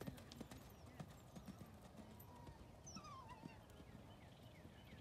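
Faint hoofbeats of a horse cantering on arena sand.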